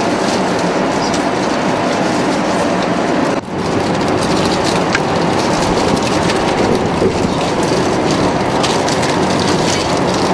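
Steady rushing cabin noise of an Airbus A380 in flight, from airflow and engines, heard from an economy seat. It dips briefly about three and a half seconds in.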